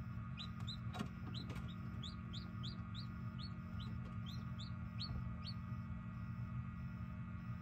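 Newly hatched chicks peeping inside an egg incubator: a quick run of short, high peeps, a few each second, that stops about five seconds in. Under them is a steady low hum, with one faint knock about a second in.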